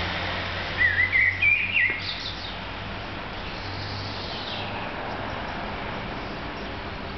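A songbird sings one short phrase of quick, wavering, rising notes about a second in, over a steady outdoor background hum.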